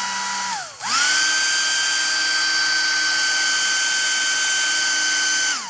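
Hand-held hair dryer running on high with a steady motor whine. About half a second in it slows, then spins back up to a higher pitch, and it winds down at the end. It is heating an old sewing machine's needle clamp and presser parts to soften old oil gummed into glue so they come loose.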